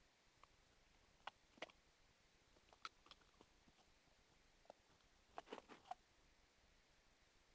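Faint sticky clicks and squelches of slime being mixed by hand, a few scattered ones and then a quick run of them about five and a half seconds in.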